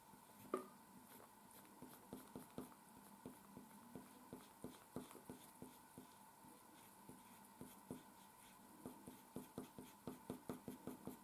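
Faint strokes of a coloured pencil on paper: short, irregular strokes that come quicker near the end.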